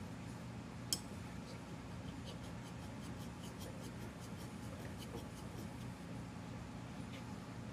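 Faint scratchy ticks of a hand file being worked over a Jeep brake caliper's mating surface to flatten a low spot, with one sharp click about a second in. A steady low hum runs underneath.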